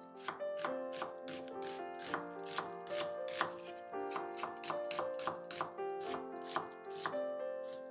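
Knife chopping on a cutting board, sharp cuts at about three a second, over soft background piano music.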